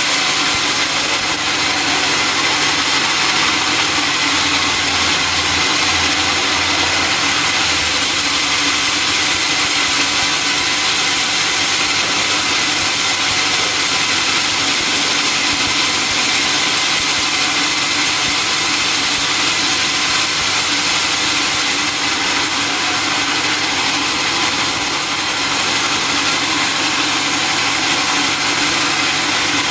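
Sawmill machinery running steadily: the log saw and its engine, a loud unbroken mechanical noise with a steady hum and a hiss reaching high up.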